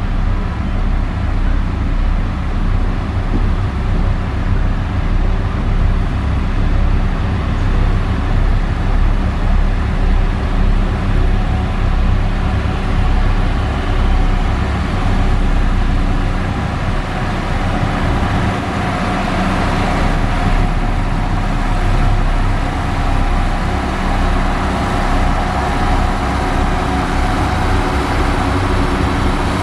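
Heavy diesel engine of a road-construction machine running steadily, with a faint higher whine joining about two-thirds of the way in.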